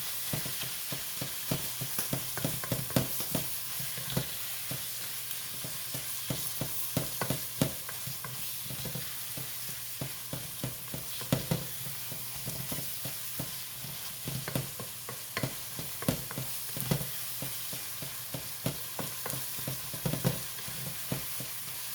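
Ground beef and onions sizzling in a skillet as they brown, with a utensil stirring and scraping the meat, tapping against the pan in many irregular clicks.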